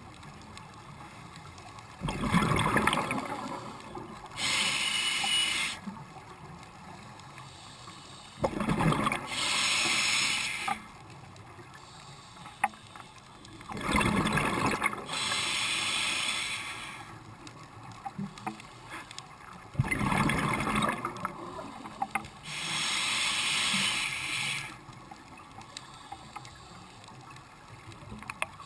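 Scuba diver breathing through a regulator: four slow breaths about six seconds apart. Each is a burst of exhaled bubbles rumbling out of the regulator, then the steady hiss of air drawn in through the demand valve.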